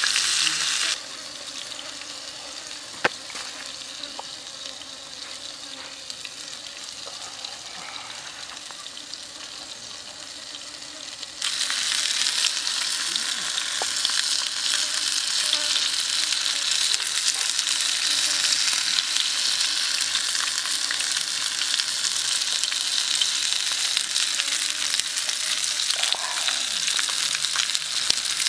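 Pork ribs sizzling as they fry in a hot black metal pan. The sizzle drops suddenly about a second in, with a single sharp click near three seconds, and comes back louder about eleven seconds in.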